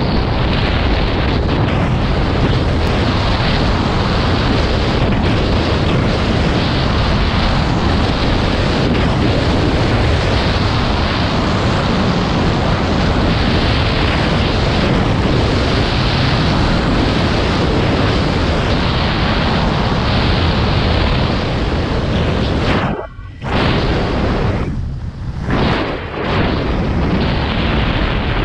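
Heavy wind buffeting on an action camera's microphone from skiing straight down at about 50 to 70 km/h, a loud, constant rushing noise. It drops out briefly twice near the end.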